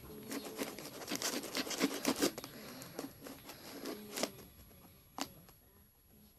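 A shipping packet being cut open with a knife: scratchy cutting and tearing at the packet's tape, with crinkling of the packaging. It thins out after about four seconds, with one sharp click near the end.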